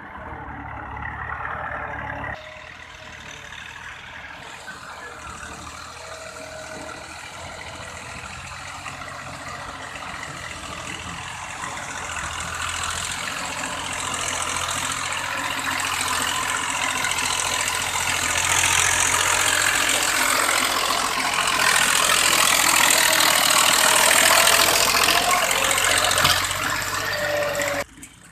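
Massey Ferguson 135 tractor engine running, the noise growing steadily louder through most of the stretch and then cutting off abruptly near the end.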